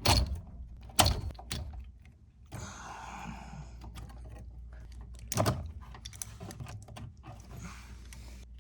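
Hands working wires and a contactor's metal terminals: three sharp clicks and knocks, at the start, about a second in and about five seconds in, with two stretches of scraping rustle between, over a steady low hum.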